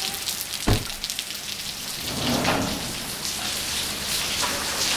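Heavy rain falling steadily, a dense patter on the ground, with a single thump just under a second in.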